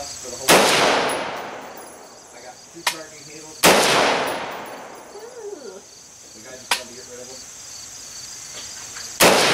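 Three rifle shots, about three and then five and a half seconds apart, each followed by a long echo dying away, with two fainter sharp cracks in between. Insects chirr steadily underneath.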